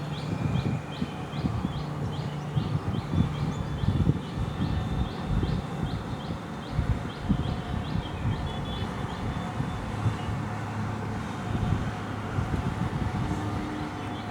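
Steady low traffic rumble with a bird's short high chirps repeated evenly, about two a second; the chirping stops about two-thirds of the way through.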